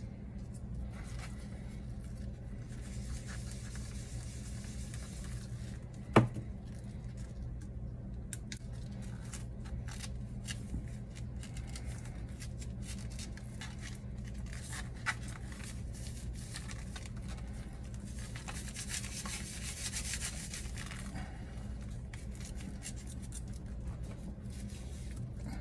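Cloth pad rubbing conservation wax onto a small metal artifact, with light handling noise in two longer stretches. One sharp knock about six seconds in, and a smaller one later, over a steady low hum.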